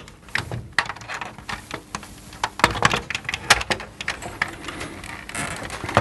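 Plastic retaining clips of a Bosch tumble dryer control module clicking and snapping as the module is prised out of its plastic fascia panel, over a run of small handling clicks of plastic on plastic; a few louder snaps come around the middle.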